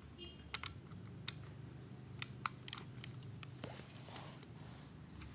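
Canon EOS 5 film SLR's controls being worked by hand: a handful of short, sharp, separate clicks in the first three seconds.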